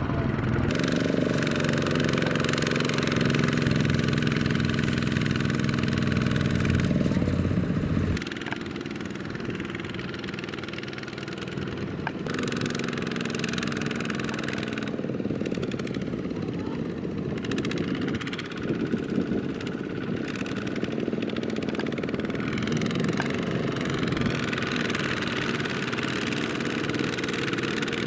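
Single-cylinder diesel engine of a Kubota walking tractor running hard, then turning suddenly quieter and lighter about eight seconds in and running on steadily.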